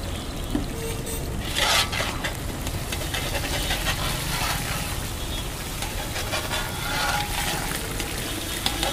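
Chicken liver pieces deep-frying in hot oil in a large iron kadai, the oil bubbling and sizzling as metal skimmers stir through it, with a louder burst of sizzling about two seconds in. A steady low rumble runs underneath.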